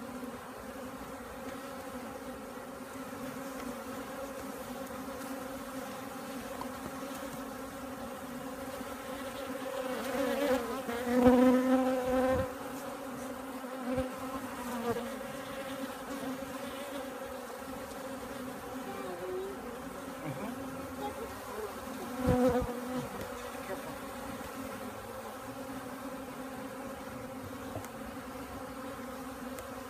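Honeybees buzzing, a steady wing hum that swells louder twice, first about a third of the way in and again about three-quarters through.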